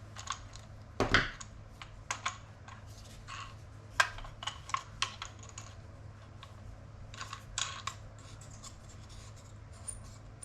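Clicks, knocks and scrapes of a yoke mount's clamp being handled and tightened down around a screwdriver, with sharp knocks about a second in and about four seconds in, over a low steady hum.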